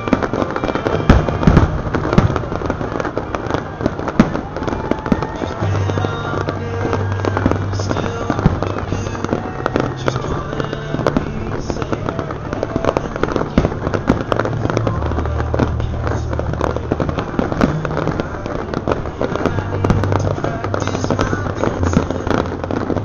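Aerial firework shells bursting in quick succession, with many bangs and crackles a second. They play over music with held bass notes that change in steps.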